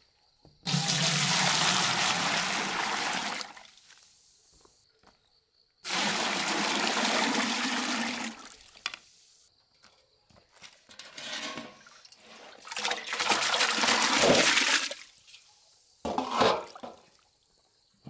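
Water pouring and splashing in four spells. The first two are steady and last about three seconds each; the later two are shorter and more uneven.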